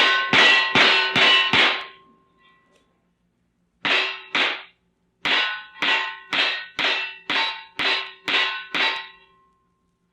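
Shooting-gallery sound effect: rapid gunshots with a short metallic ring after each. They come in three strings: five quick shots, a pause, two shots, another pause, then nine shots at about two and a half a second.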